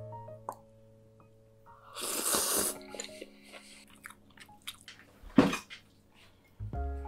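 Eating at the table: a short rushing noise about two seconds in, then light clicks of chopsticks and a spoon against a ceramic bowl, and one dull thud about five seconds in. Background music plays at the start and comes back near the end.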